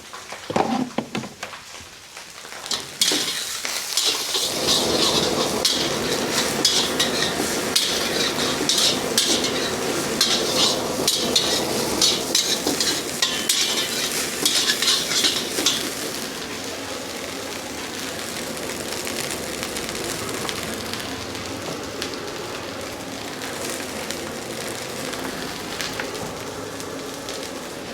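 Food frying hard in a street-stall wok, with a metal ladle clattering and scraping against the wok as it is stirred and tossed. The clatter is busiest in the first half, then the sizzling goes on more steadily and a little quieter.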